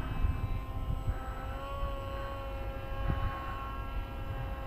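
Distant electric motor and propeller of an FX-61 Phantom flying wing in flight, a steady drone that rises slightly in pitch about two seconds in, over low wind rumble on the microphone.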